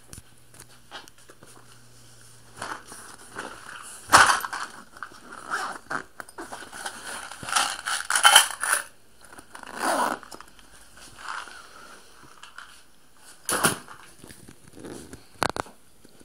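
Handling noise: irregular rustling, scraping and clicking as the phone is moved and a small object is picked up, with a few sharp knocks.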